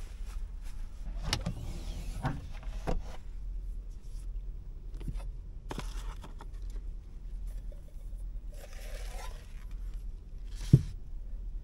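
Scattered clicks and knocks of things being handled, over a steady low hum, with a short rising whine about nine seconds in and a loud thump near the end.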